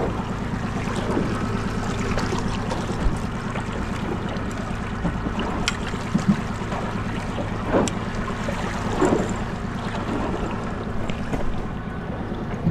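Boat engine running steadily under way, an even drone, with wind noise on the microphone and water sounds.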